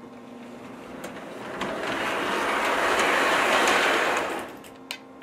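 O-gauge three-rail steam locomotive chassis and tender running along the track under command control and passing close by. The motor and wheels on the rails grow louder from about a second in and fade away about four and a half seconds in. The newly installed command board is responding.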